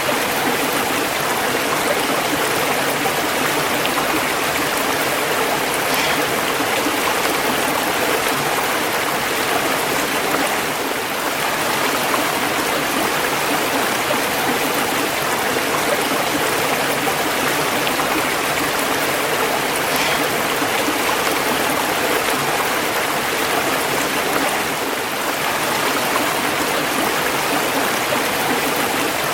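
Running water from a stream or small waterfall, a steady rushing flow.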